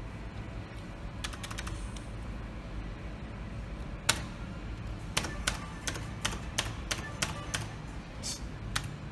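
Sharp clicks from a Merkur slot machine being played: a few quick clicks early, a single louder one about four seconds in, then a fast run of about eight clicks and one more near the end, over a steady low hum.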